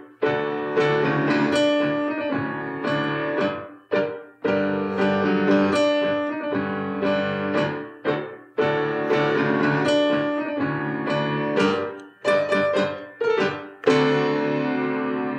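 Piano playing chords in short phrases, each struck, held and let go, with a last chord struck near the end and left to ring.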